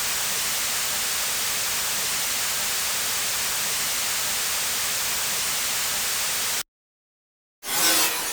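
Steady white-noise hiss, even and bright, that cuts off abruptly about six and a half seconds in. After a second of silence, a new burst of noise starts sharply near the end.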